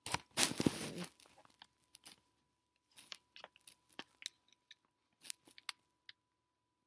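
A rough crunching rustle in the first second, then scattered small clicks and taps: a phone charging cord being fumbled with and plugged into a laptop, with the camera handled close to the microphone.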